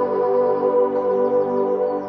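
Ambient music: layered, sustained pad-like tones held steady, with faint short high chirps above them.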